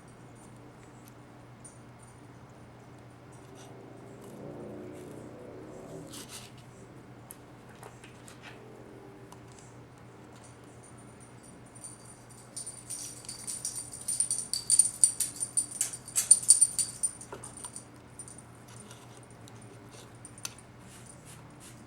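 Small metal pieces clinking and jingling in a quick run about thirteen seconds in, over a steady low hum, with a faint short whine about four seconds in.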